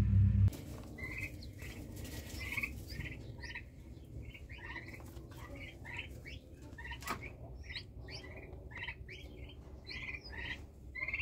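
Common pheasant chicks peeping: many short, high chirps, a few a second, over a faint low hum. A loud steady hum cuts off about half a second in.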